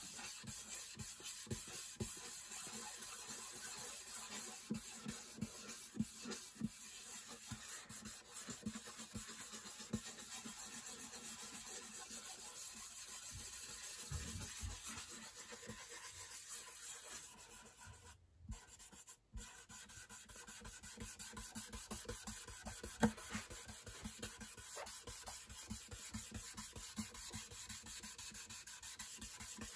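A cloth rubbing dye into a guitar's wooden top in quick, short, faint strokes, with a brief pause about two-thirds of the way through.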